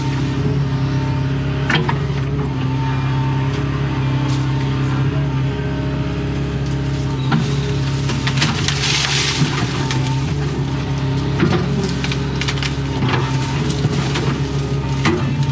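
Doosan excavator's diesel engine running steadily under load, with scattered sharp cracks of breaking wood and a rush of branches and leaves about nine seconds in as a tree is worked over.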